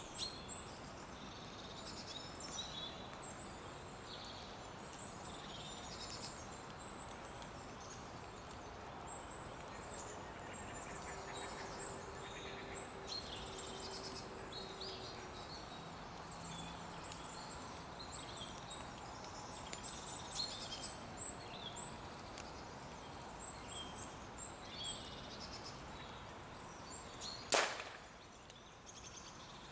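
Small birds chirping on and off over a faint outdoor hush, then, near the end, a single sharp crack: an air rifle shot at a grey squirrel on the feeder.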